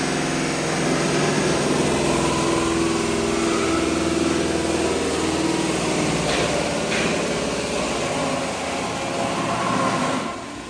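Electric-motor-driven wood sawdust machine running as it grinds wood and throws out sawdust: a steady, loud mechanical whir with several hum tones. Two short sharp sounds come a little past the middle, and the sound drops suddenly in loudness near the end.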